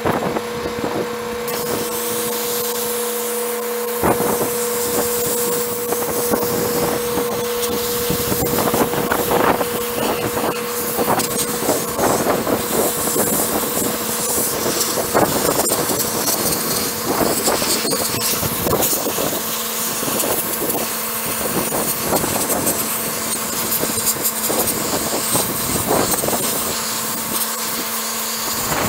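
Handheld sandblaster spraying abrasive grit onto a steel wheel: a loud, continuous hiss of air and grit with uneven crackling as the nozzle works over the metal, and a steady hum underneath.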